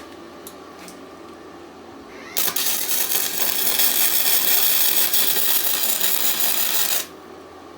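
Power tool running on the metal of the cylinder in one steady burst of about four and a half seconds, starting a couple of seconds in and cutting off sharply, after a few faint clicks.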